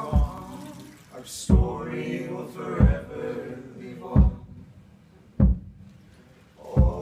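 Several voices singing together in harmony without instruments, over a low thump about every 1.3 seconds, six in all, from a long wooden stick pounded on the stage floor. The voices drop away about four and a half seconds in, leaving the thumps on their own, and come back in together near the end.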